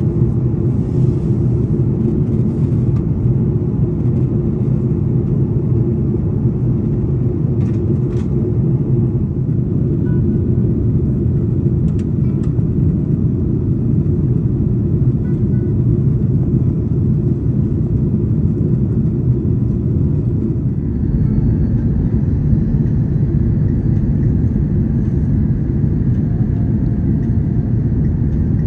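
Steady cabin roar inside an Airbus A330-900neo airliner in descent, the engine and airflow noise heard from a window seat over the wing. About 21 seconds in, a slightly brighter hiss joins the low roar.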